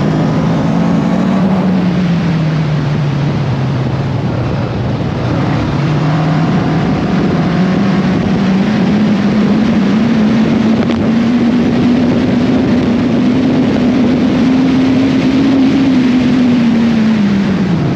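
Caterham sports car engine at speed, under heavy wind rush on the microphone. The engine note drops about three seconds in, then climbs slowly and steadily for about ten seconds under a long pull, and falls away near the end as the driver comes off the throttle.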